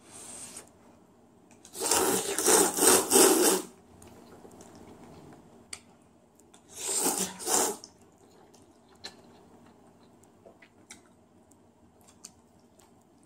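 Instant ramyun noodles slurped off chopsticks: a brief blow to cool them at the very start, then a long, loud, pulsing slurp about two seconds in and a second shorter slurp around seven seconds. Only faint small clicks follow.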